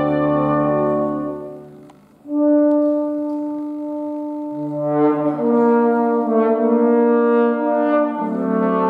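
Trumpets and trombones playing sustained chords together. A held chord dies away about two seconds in, the music breaks off for a moment, then a new loud chord enters and the harmony shifts twice more.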